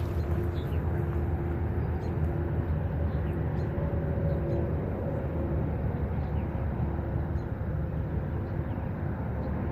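Steady engine and road rumble heard from inside a moving car, with a faint steady hum running through it.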